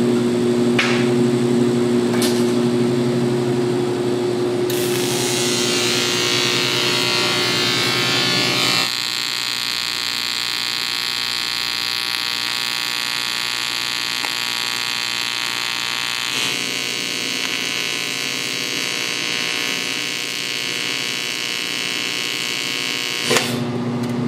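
AC TIG welding arc on aluminum: a steady electric buzz with many even overtones. A lower steady hum, joined by a hiss, comes first; the buzz takes over about nine seconds in and shifts in tone about sixteen seconds in.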